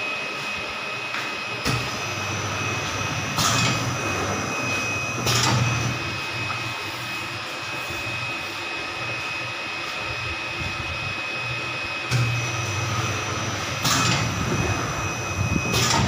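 Flatbed screen printing machine running: a steady whir with a high whine under it, and twice a print cycle of sharp mechanical clacks with a couple of seconds of lower motor hum between them.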